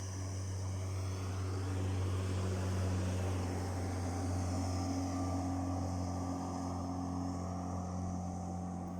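Motorboat engine running at a steady pitch, a constant low hum, with the rush of water and wind over it.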